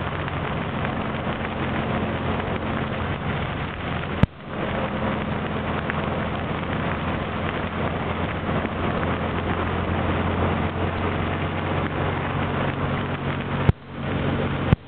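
Dune buggy driving in rain: a steady engine drone mixed with road, wind and rain noise. A sharp click cuts through it twice, about four seconds in and again near the end.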